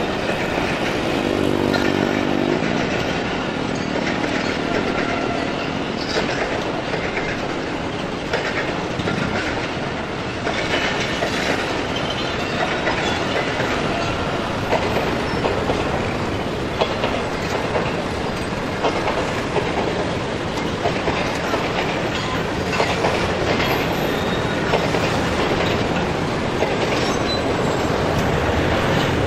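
Pakistan Railways passenger coaches rolling slowly past over a level crossing: a steady rumble of wheels on rail with irregular clicks and clacks over the rail joints. A short horn sounds about a second in.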